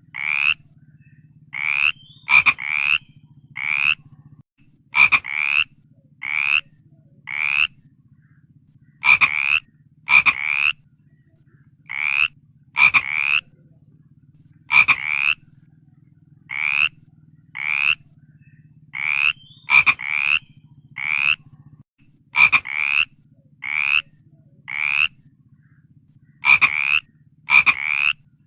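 Frog croaking over and over: short croaks about half a second long, roughly one a second and sometimes in quick pairs, over a faint steady low hum.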